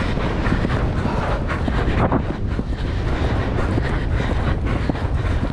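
Wind buffeting a helmet-camera microphone at the gallop, a steady rumble, with the horse's hoofbeats on turf thudding underneath.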